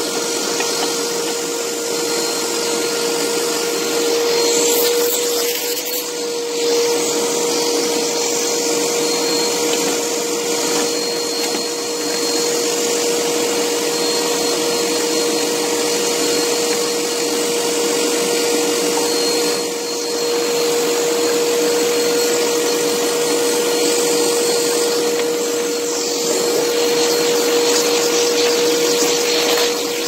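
Vacuum cleaner running steadily, a constant whine over rushing air.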